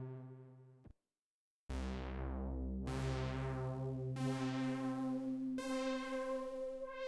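Dave Smith Instruments Prophet 6 analog polyphonic synthesizer playing a preset patch dry: a held tone fades out, and after a short silence four notes are struck in turn, each starting bright and mellowing as its filter closes, the last one higher.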